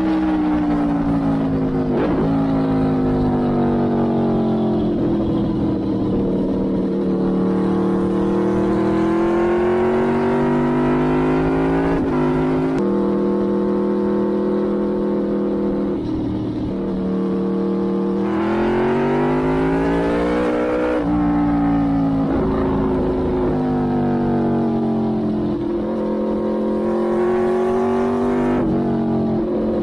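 Aprilia Tuono V4 engine heard through an Arrow GP exhaust while riding, its pitch rising under acceleration and falling off the throttle. There are several sudden steps in pitch where the rider changes gear.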